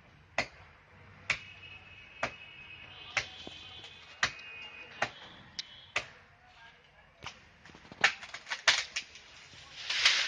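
Chopping strokes of a blade into a tree branch: sharp single strikes about once a second, coming faster near the end. A short rush of rustling leaves follows.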